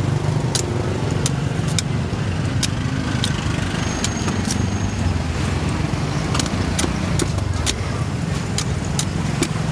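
A large knife chopping into coconuts: a dozen or so sharp, irregular strikes, over steady traffic and engine noise.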